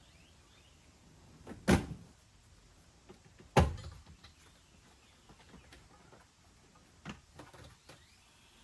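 Two loud, sharp knocks about two seconds apart, the second the louder, followed near the end by a few lighter clicks and knocks, like car parts or a door being handled.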